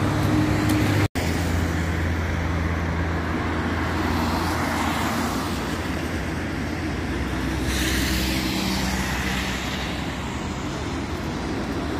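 City road traffic: cars driving past with a steady hum of engines and tyre noise, one vehicle passing louder about eight seconds in. The sound cuts out for an instant about a second in.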